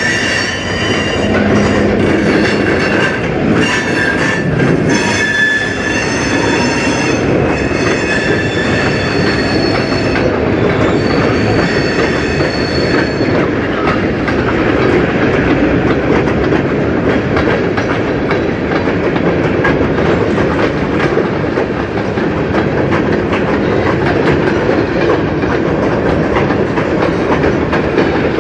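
Freight train of tank cars rolling past, steel wheels rumbling and clattering on the rails. For roughly the first half, the wheels squeal in high, steady tones that stop about thirteen seconds in, leaving only the rolling rumble.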